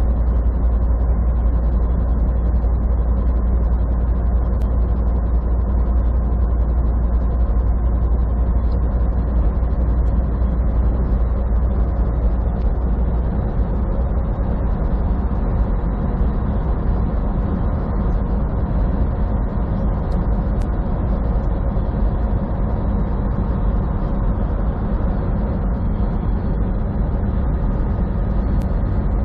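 Steady drone inside a semi truck's cab cruising at highway speed: diesel engine and road noise with a deep rumble underneath. The deepest rumble eases slightly about halfway through.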